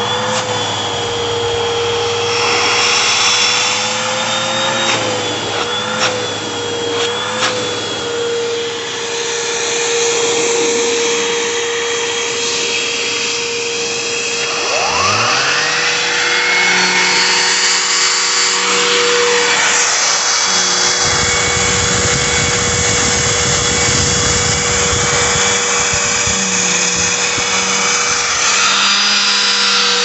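Two vacuum cleaner motors. One runs steadily with a high whine. About 15 seconds in, a second vacuum switches on and its motor spins up with a rising whine, then both run together, with rough suction rushing as a wand is worked over fabric.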